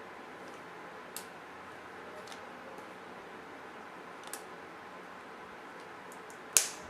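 A few faint clicks and ticks of small plastic laptop parts and tape being handled, with one sharper click near the end, over a steady low hiss.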